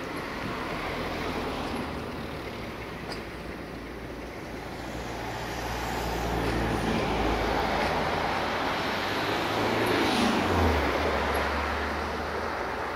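Romanian passenger coaches rolling slowly over station tracks, the wheels rumbling, under a low steady engine drone from the locomotive. The rumble swells and is loudest about ten seconds in, as the last coach passes.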